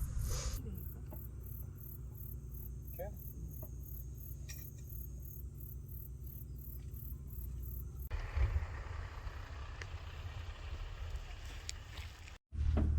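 Crickets chirping in a steady, even pulse of about three chirps a second, high-pitched, over a low steady rumble.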